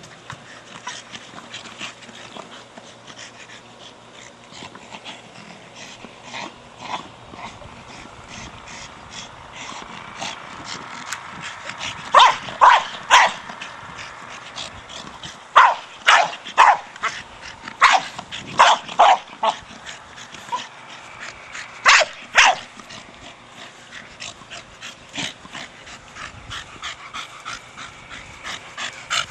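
A Staffordshire Bull Terrier playing with a big hard plastic ball: a steady run of knocks and clatter from the ball. Through the middle the dog gives clusters of short, loud barks and yips.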